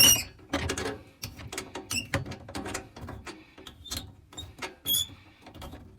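Monument olive puller being turned by its T-bar: irregular metallic clicks and short squeaks as the threaded screw draws a tight, crushed compression olive off a copper pipe.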